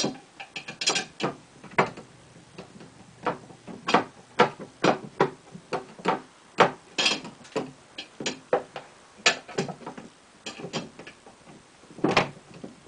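Irregular metal clicks and clinks, a couple a second, as the bolts and hardware of a pinball machine's back-box hinge are handled and lined up, with a louder knock near the end.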